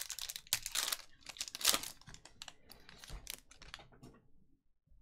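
Foil wrapper of a Panini Select trading card pack being torn open and crinkled by hand: a run of crackling rustles with a couple of louder rips in the first two seconds, dying away about four seconds in.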